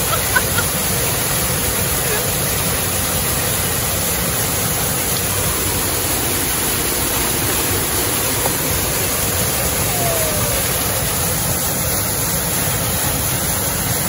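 Close-up waterfall, a steady rush of water crashing onto rock, with a couple of brief sharp sounds in the first half second.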